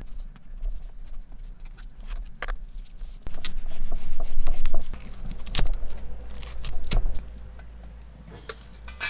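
Knife cutting a melon on a cutting board: scattered sharp taps and clicks of the blade going through the fruit and hitting the board. A low rumble comes in about three seconds in and is the loudest sound for about four seconds before it drops away.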